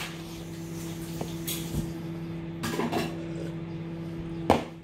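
Mouth noises of eating: chewing, then wet slurps as liquid is sipped straight from the rim of a plastic tub, the loudest slurp near the end.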